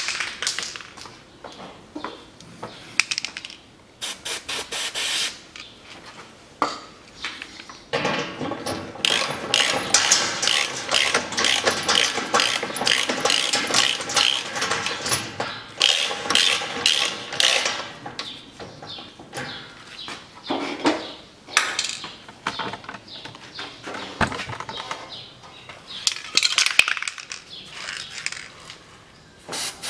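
Hand ratchet wrench clicking as it turns a bolt holding a steel engine skid plate to its mounting bracket. The clicking comes in runs, with the longest fast run from about 8 to 18 seconds in.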